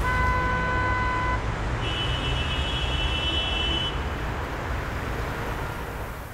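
Road traffic noise running steadily, with two sustained horn-like tones: a lower one for about a second and a half at the start, then a higher one lasting about two seconds. The noise fades out at the end.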